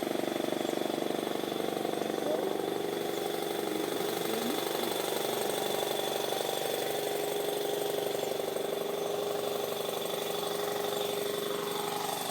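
Air compressor running with a steady, even drone; its pitch sags slightly near the end.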